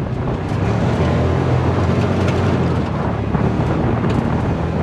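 UTV engine running steadily at driving speed, a low drone under heavy wind buffeting on the microphone in the open cab.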